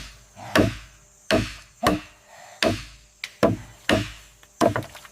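Repeated sharp blows on wood, like chopping, about one every half to three-quarters of a second, with a quicker cluster of lighter knocks near the end.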